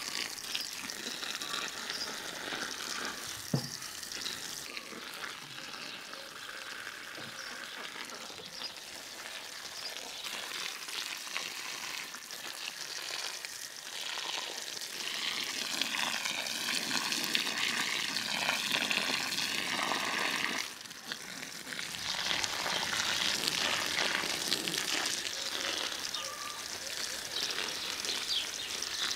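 Water spraying from a garden hose nozzle onto shrubs and soil, a steady spattering hiss.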